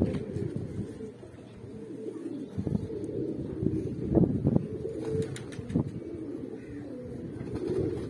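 A flock of domestic pigeons cooing, many low coos overlapping continuously, with louder swells about four seconds in.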